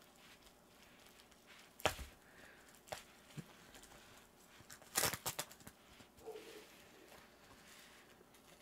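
Plastic postal mailer bag being torn and crinkled open by hand, with its bubble-wrap lining rustling. There are a few sharp rips about two and three seconds in, and a louder cluster of rips a little past the middle.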